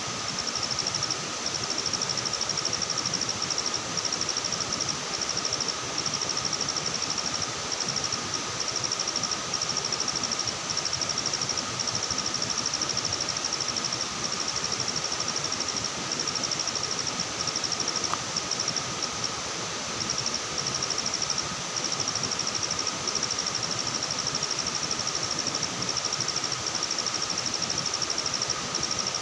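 Night insects calling without a break: a high trill pulsing very quickly over a steady, lower drone, with an even hiss underneath.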